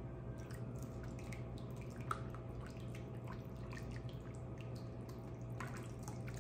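Wire whisk stirring thick, creamy gravy in a stainless saucepan: irregular soft ticks of the wires against the pan and wet squishing, over a steady low hum.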